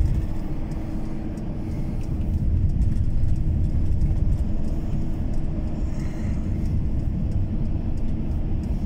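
Steady low rumble of a vehicle driving, heard from inside the cabin: engine and tyres running over a snow- and ice-covered highway.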